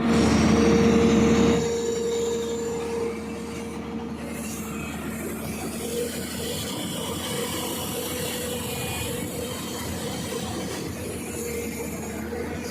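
Hyundai long-reach excavator working, its engine and hydraulics running with a steady whine. It is loudest for the first second and a half, then drops to a quieter, even level.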